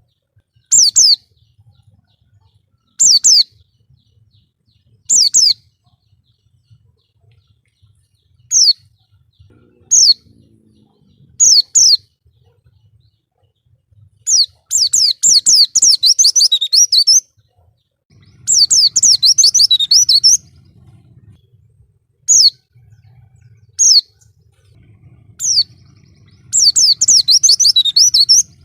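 White-eye (pleci) singing: single high, clear notes every second or two, broken by three bursts of rapid, high twittering song, each lasting two to three seconds, around the middle and near the end.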